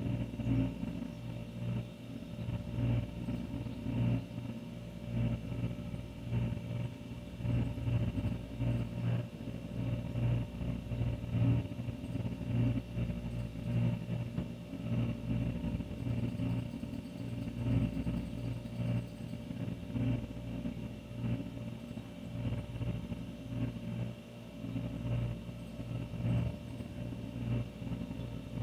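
Older refrigerator running: a steady low hum from the compressor, with a faint buzz above it, wavering slightly in loudness.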